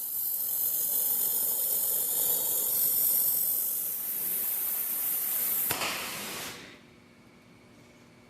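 Welding arc crackling and hissing steadily, then cutting off suddenly about six and a half seconds in.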